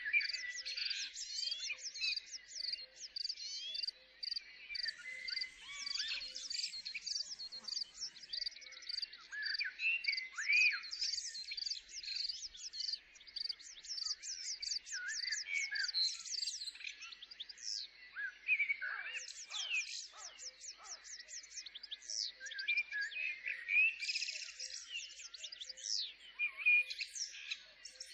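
Several small birds singing at once: a dense, continuous chorus of chirps, quick trills and sliding whistles.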